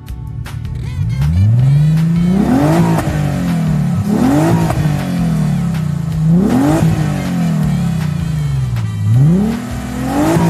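A motor vehicle engine revving up sharply and dropping back, four times in a row.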